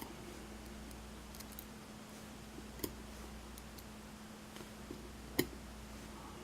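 A few small, sharp clicks of pins and tools on a pin-tumbler lock being reassembled. The loudest click comes about five seconds in.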